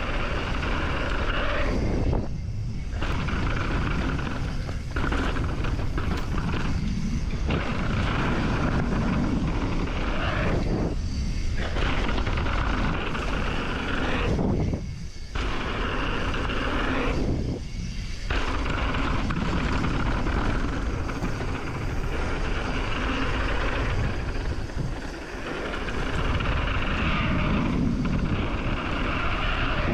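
Mountain bike rolling fast down a dirt trail: tyre rumble and wind rushing over an action camera, steady and loud, with several brief dips where the rushing noise drops away.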